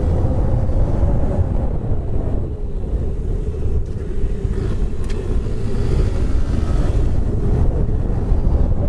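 Honda Grom's 125 cc single-cylinder engine running steadily while riding, under heavy wind buffeting on the microphone.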